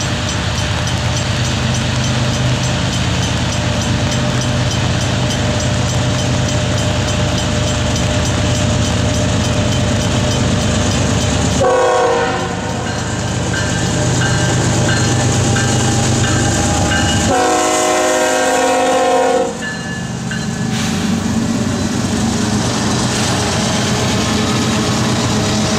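Canadian Pacific GE ES44AC diesel locomotives hauling a double-stack container train pass close by with a steady engine rumble. About halfway through the horn sounds twice: a short blast, then a longer one about five seconds later. After that the locomotives and the first container cars roll past.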